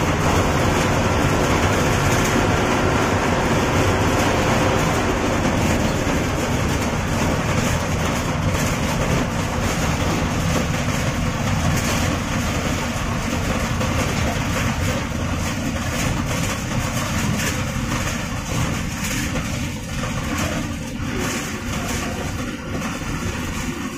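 Diesel engine of an MSRTC ST bus running under way, with road noise and the body and fittings rattling, heard from the driver's cabin. The sound is steady, easing a little over the second half.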